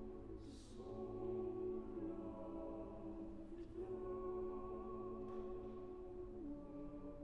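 Church choir singing slow, sustained chords without accompaniment, the harmony moving to a new chord every second or two. A soft sibilant consonant is heard about half a second in.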